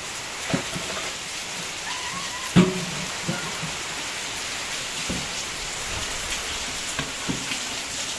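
Steady rain falling, an even hiss with occasional louder knocks, the strongest about two and a half seconds in.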